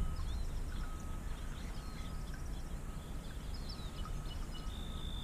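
Small songbirds chirping and trilling repeatedly over a steady low rumble.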